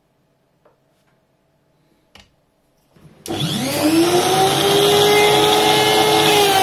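A handheld rotary tool fitted with a nylon brush wheel is switched on about three seconds in, after two light clicks. Its whine rises quickly as it spins up, then it runs at a steady high speed.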